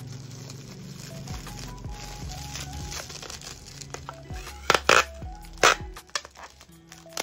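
Bubble wrap crinkling as it is pressed and folded around a parcel, then three short loud rasps about five seconds in as packing tape is pulled from a handheld tape dispenser, over background music.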